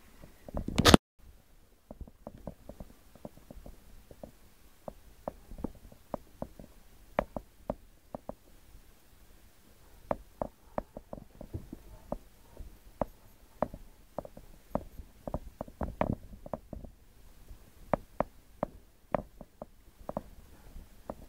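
Aquarium water gurgling, with irregular small pops and clicks a few times a second over a low rumble. A loud brief noise comes just before a second in and cuts off suddenly.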